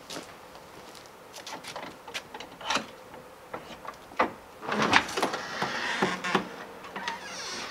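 Footsteps on concrete, then a padlock and metal hasp clicking and rattling as they are unlocked, and a heavy wooden barn-style door rattling as it is pulled open, about five seconds in.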